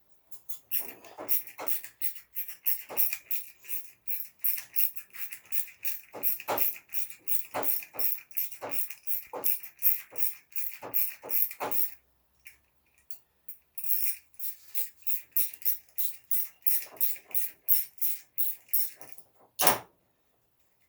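Ratchet wrench clicking rapidly, about four or five metallic clicks a second, as fasteners are worked loose to remove a chainsaw carburetor. It runs for about eleven seconds, stops for a moment, runs again for about five seconds, and ends with one sharp click.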